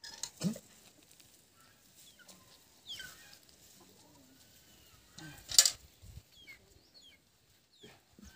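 Short bird chirps falling in pitch, scattered through, with a few light knocks and one loud sharp metallic clank a little past halfway as a steel pail is set down on hard dirt ground.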